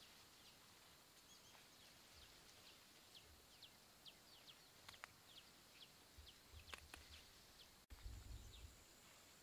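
Faint bird chirping: a steady run of short, quick descending chirps, about two a second. A couple of sharp clicks fall in the middle, and a brief low rumble comes near the end.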